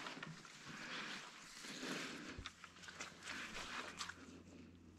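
Soft rustling and handling noise in grass and reeds, with a few short, light knocks, as someone moves about on the bank.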